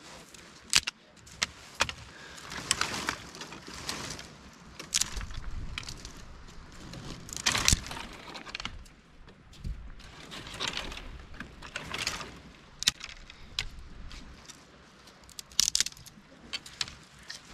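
Dry branches and twigs being broken and handled: sharp snaps and cracks scattered among the rustle of brittle twigs.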